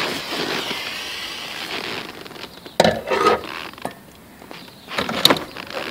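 Handheld gas torch hissing steadily as it heats heat-shrink wire connectors, cutting off about two seconds in. A few sharp clicks and clatters follow as the wiring and tools are handled.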